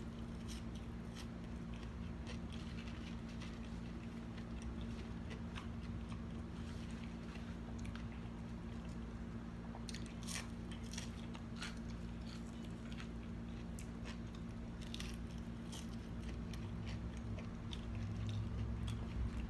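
Chewing and biting into homemade french fries, with soft crunches and mouth clicks scattered irregularly throughout, over a steady low hum.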